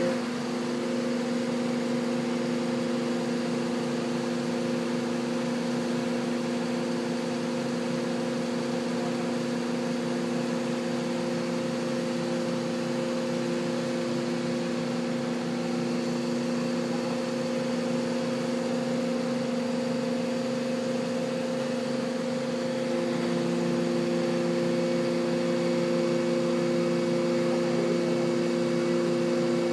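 Fire engine's aerial ladder truck with its engine running at a steady speed, a steady hum. The note strengthens slightly about two-thirds of the way through.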